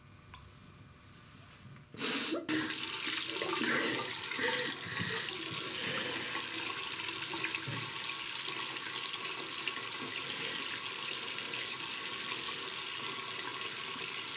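Water running from a bathroom tap into a sink, turned on suddenly about two seconds in and then running steadily.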